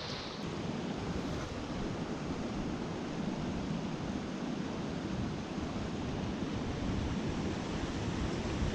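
Small freestone mountain stream rushing over rocks, a steady, even rush of water.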